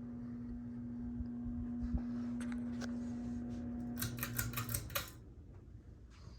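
Encon Georgian ceiling fan's motor humming steadily. A quick run of clicks comes about four seconds in as the pull chain is worked, and the hum cuts off as the fan is switched off to spin down.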